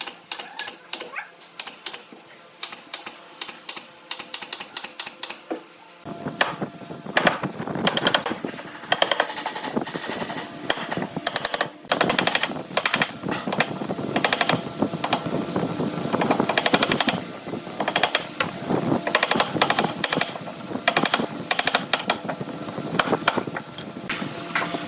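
Woodworking tool work: a fast, irregular run of sharp clicks and knocks, which becomes a denser, busier clatter about six seconds in.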